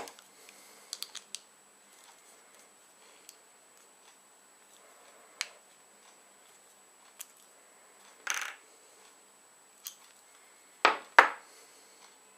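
Sporadic clicks and taps of small parts being handled, with a short scrape about eight seconds in and two louder sharp knocks close together near the end.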